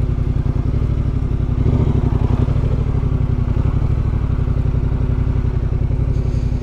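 Yamaha Ténéré 700's 689 cc parallel-twin engine running steadily at low revs while the bike is ridden slowly.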